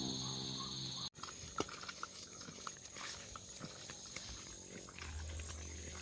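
An animal's low, steady call in about the first second, cut off abruptly, followed by scattered faint clicks and rustles.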